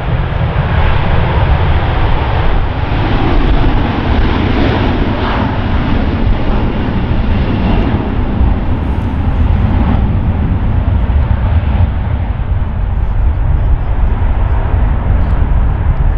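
Jet engines of a Swiss Airbus A330-300, Rolls-Royce Trent 700s, at takeoff thrust as the airliner accelerates down the runway and lifts off: a steady, loud jet noise with a heavy low rumble.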